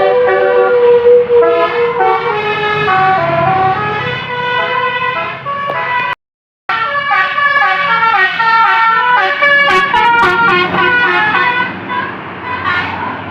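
Basuri multi-tone bus horn playing a tune of stepped, held notes, breaking off for about half a second around six seconds in.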